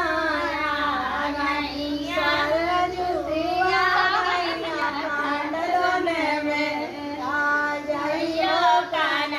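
A high-pitched voice singing a continuous, gliding melody.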